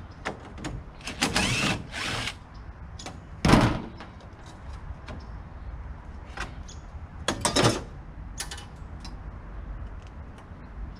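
Sheet-metal panel of an air-conditioner cabinet being worked loose by hand: scraping and clanking metal, with a loud knock about three and a half seconds in and a rattle about seven and a half seconds in.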